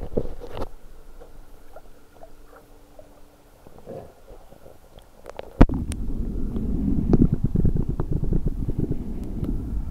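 Scattered small clicks and water sloshing at the waterline, then a sharp knock a little over halfway through as the camera goes under water, followed by loud muffled underwater gurgling and crackle.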